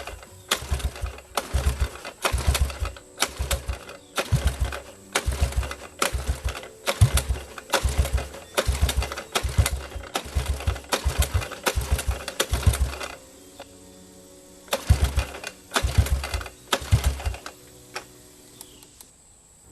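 Single-cylinder engine of a 1982 Honda ATC185s three-wheeler cranked over again and again in quick, rhythmic strokes without catching. The cranking pauses briefly partway through, then comes in three more strokes and stops.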